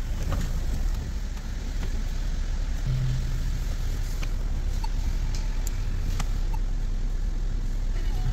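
2011 Volvo C70's engine idling steadily, with a few faint ticks over it.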